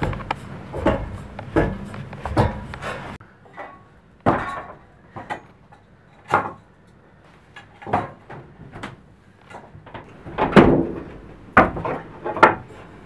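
A series of irregular knocks and thumps on wood, some single and some in quick pairs, with the loudest cluster about ten and a half seconds in.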